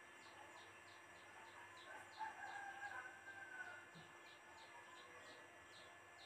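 Faint, distant rooster crow about two seconds in, lasting under two seconds, over near-silent room tone. Faint high chirps repeat steadily in the background, about three a second.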